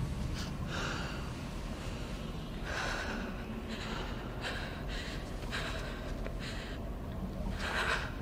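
A young woman crying, with ragged, shaky gasping breaths coming at uneven intervals; the sharpest gasp is near the end. A low steady rumble runs underneath.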